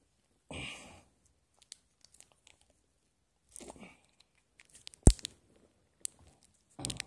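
A burger packet being handled and torn open: short scattered rustles, crinkles and tearing. One sharp knock about five seconds in is the loudest sound.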